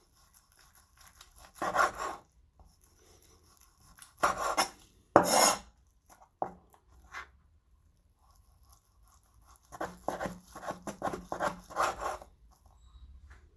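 Knife slicing through beef tendon on a chopping board, the blade rasping as it is drawn through. Three separate strokes come first, then a run of short, quick cuts from about ten to twelve seconds in.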